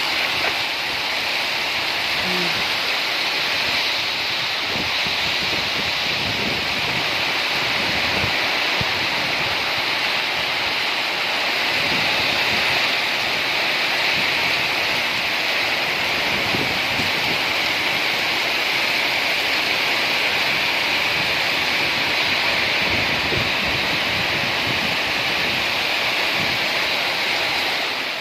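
Steady rain falling, an even hiss with scattered faint drips and patters underneath.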